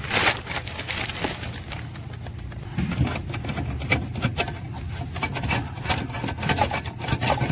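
Irregular clicks, knocks and rubbing of hand tools and car interior parts being worked on, over a steady low hum.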